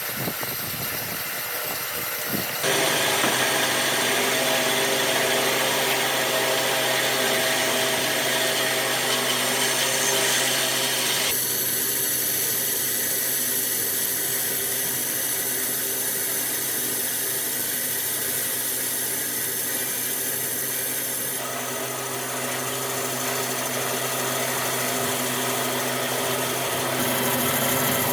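Power tool starting up about three seconds in and then running steadily, its sound changing abruptly twice.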